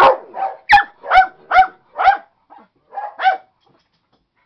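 A dog barking repeatedly, about eight barks roughly half a second apart, stopping about three and a half seconds in.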